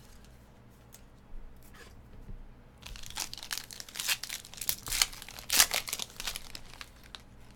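Foil trading-card pack being torn open and crinkled in the hands: a quiet start, then a run of sharp crackling tears from about three seconds in.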